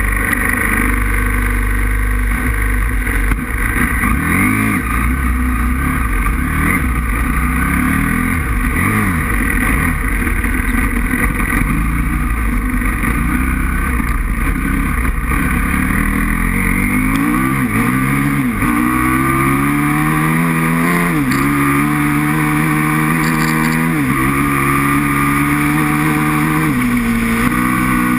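Aprilia RXV 550 V-twin motorcycle engine under way with heavy wind rumble, its pitch wandering unevenly at first. From about halfway through it accelerates hard through the gears: the pitch climbs and drops back at each shift, four or five times.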